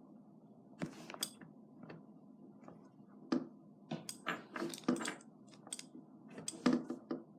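Small parts of an ASG M1911 airsoft pistol being handled during disassembly, giving a run of irregular sharp clicks and clacks. The clicks come thickest about four to five seconds in and again near the end.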